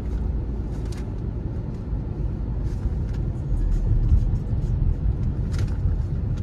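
Steady low rumble of a car being driven, heard from inside the cabin, with a few faint ticks.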